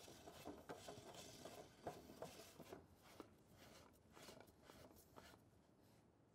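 Faint handling sounds of plastic pump parts: light rubbing and a few small clicks as a new white plastic suction cylinder is pushed into the bottom of a dosing pump's body.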